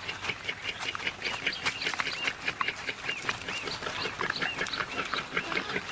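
Animal calls: a rapid, continuous run of short, high, arched calls, several a second, mixed with small clicks.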